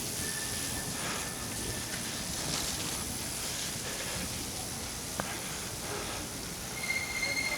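Steady hiss of bicycle tyres rolling through wet slush on the road, with a sharp click about five seconds in and a brief high-pitched tone near the end.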